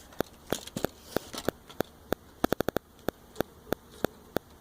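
Irregular sharp clicks over a faint hiss, some in quick runs of about ten a second: crackle from faulty audio in the recording rather than from anything being handled.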